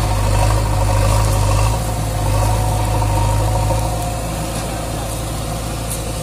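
Swaraj 744 FE tractor's three-cylinder water-cooled diesel engine running steadily at low speed, a continuous low hum that eases slightly about four seconds in.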